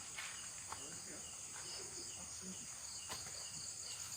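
Night insects, crickets, chirring steadily in a high continuous trill, with a few faint clicks.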